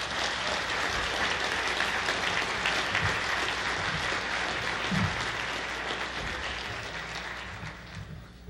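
Sustained applause from a large seated audience, tapering off near the end.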